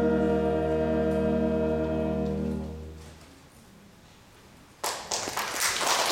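A concert wind band of saxophones, clarinets, brass and tuba holds its final chord, which fades away in the hall's reverberation about three seconds in. After a short lull, audience applause starts suddenly near the end.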